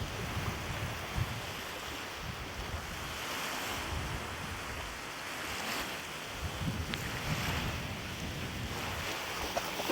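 Wind buffeting the microphone over lapping lake water: a steady rushing hiss with uneven low gusty rumbles.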